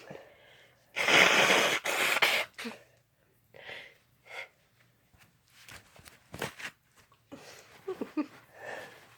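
A person's loud sneeze about a second in, followed by quieter breathing sounds.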